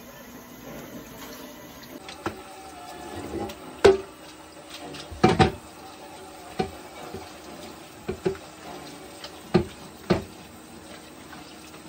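Kitchen tap running as a cooking pot is rinsed and filled, with sharp knocks of the pot every second or two, the loudest about four and five seconds in.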